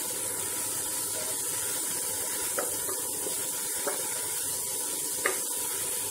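Spice paste sizzling steadily in hot oil as it is fried down and stirred, with a few light taps of the spatula against the pot.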